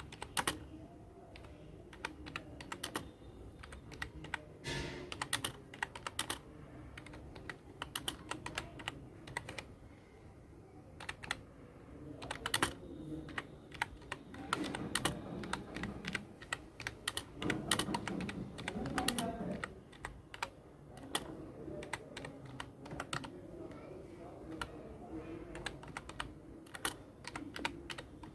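Typing on a Prodot Standard USB keyboard: irregular runs of key clicks and keystrokes, with a brief lull of fewer keystrokes partway through.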